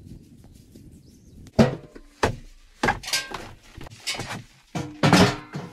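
A steel stove made from a motor-oil barrel knocking and thunking as it is carried and set in place in a small plank-lined dugout. A quiet start is followed by a run of separate knocks from about one and a half seconds in, with the loudest cluster near the end.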